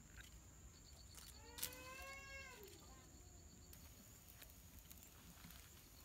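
A cat meows once, a drawn-out call about a second and a half in, with a sharp click at its start.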